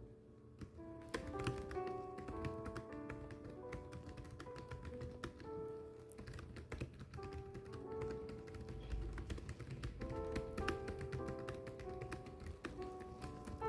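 Typing: a continuous run of quick keystroke clicks, over background music of soft held notes.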